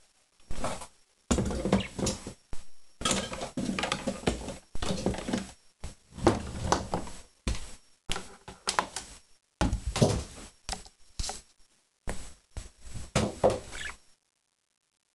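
Budgies and a cockatiel moving about in their cage as they dry off after a bath: irregular knocks, rustles and pattering in short bursts, stopping about a second before the end.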